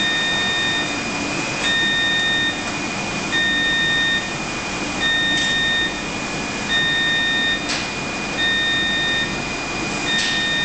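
An equipment alarm beeps in a steady repeating pattern, seven beeps each nearly a second long, about one every 1.7 seconds. Beneath it run a constant air-handling hiss and a steady high whine, with a few faint mechanical clicks.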